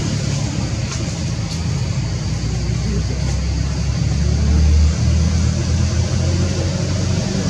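Steady low rumble with a hiss over it, swelling to its loudest a little before five seconds in and dropping off sharply.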